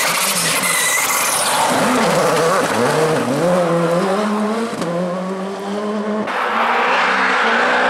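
Rally car engine revving hard as the car accelerates out of a corner, its pitch climbing and dropping back with each gear change, over tyre and gravel noise. About six seconds in the sound cuts to another rally car's engine holding a steadier note.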